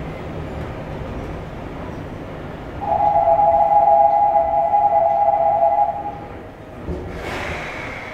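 Running noise of an old resistor-controlled Seoul Metro 2000 series train, heard from inside the car. A loud, steady two-tone horn sounds for about three seconds near the middle. A short burst of hiss follows about a second later.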